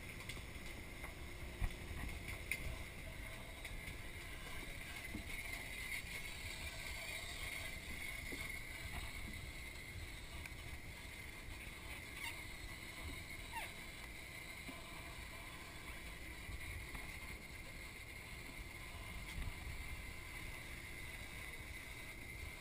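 Steady low rumble and hiss of a boat at sea, with wind on the microphone and a few faint clicks.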